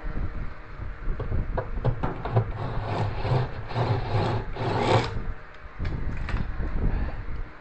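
Irregular rubbing and scraping with scattered knocks: hands working on the panels and parts of a front-loading washing machine.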